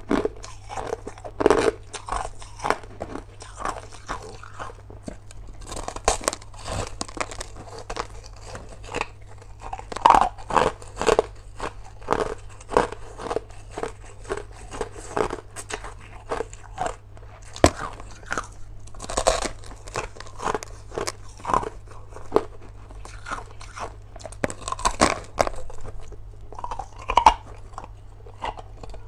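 Crushed ice being bitten and chewed: a continuous run of irregular, sharp crunches and crackles.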